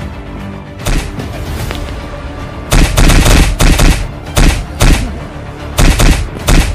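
Background music with a single sharp hit about a second in, then from just under three seconds in a rapid run of loud dubbed punch-and-kick sound effects, several a second.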